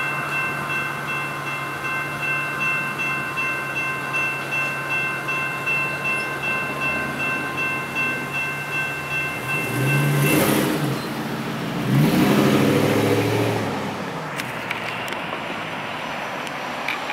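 General Signals Type 2 electronic crossing bell ringing in a steady repeating pattern as the crossing gates rise, cutting off suddenly about ten seconds in. Road vehicles then pass close by, their engines rising in pitch, loudest about twelve seconds in.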